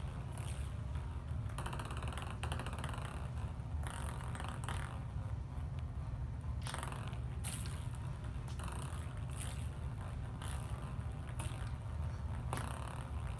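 Table-tennis ball tapping and rolling on a ping-pong table as a cat bats it, in irregular soft strikes about once a second over a steady low hum.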